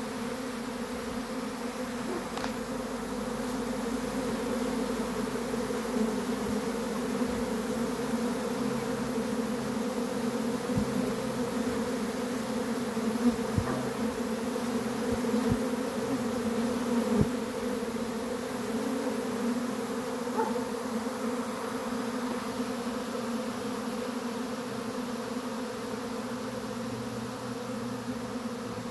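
Honeybee swarm buzzing around its cluster on a tree branch: a steady, even hum from thousands of bees, many still flying, with a few bees passing close and briefly louder around the middle.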